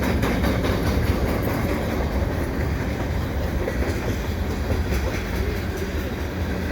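Freight cars of a long CN mixed freight train rolling past: a steady rumble of steel wheels on rail, with repeated clicks and clacks as the wheels cross rail joints.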